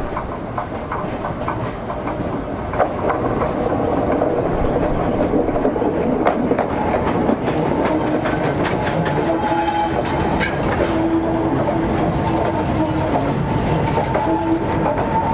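Steam tank locomotive NCB No.49 working past at close range, then a rake of loaded hopper wagons rolling by, the wheels clattering over the rail joints. A steady squeal joins in about halfway through.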